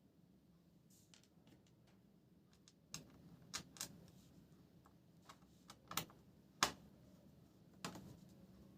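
Irregular light plastic clicks and taps on a laptop, about a dozen, mostly in the second half, the loudest a sharp click about six and a half seconds in.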